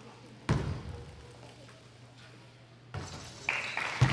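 A basketball bouncing once on a hardwood gym floor about half a second in, echoing through the hall. Near the end the gym grows louder, with more thuds.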